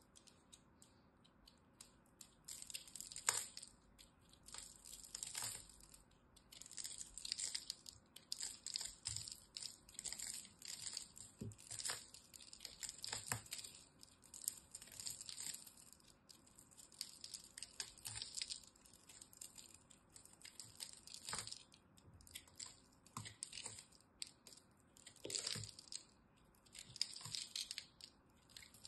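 A small knife blade cutting into a ball of dry, crumbly pressed soap shavings: crunchy crackling strokes in quick runs with short pauses, starting about two seconds in.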